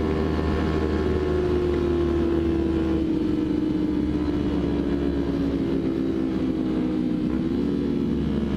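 Kawasaki Ninja motorcycle engine heard from the rider's seat, running steadily at cruising speed. Its pitch sinks slowly as the revs ease off, over a low rumble.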